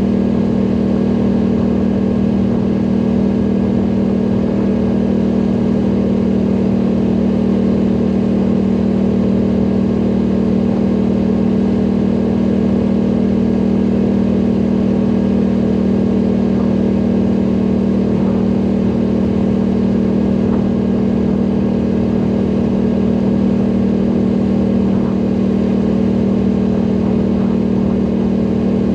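ATV engine running at a steady pace while riding, an even drone with no change in pitch or level.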